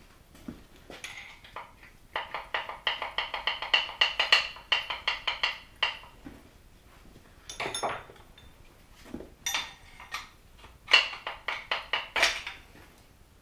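A hand ratchet clicking rapidly for about four seconds as bolts are backed out, then several separate metal clinks and knocks of steel parts being handled and set down.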